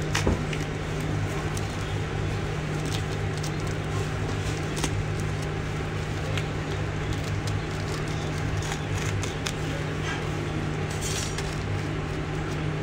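Box cutter blade slicing and scraping through the packing tape and plastic wrap of a parcel, heard as scattered scratches and clicks, over a steady low hum.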